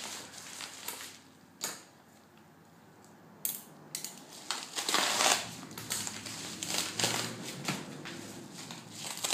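Product packaging being handled and opened by hand: crinkling and crackling in bursts, with a couple of sharp clicks. There is a quiet pause about two seconds in, and the handling grows busier from about four and a half seconds on.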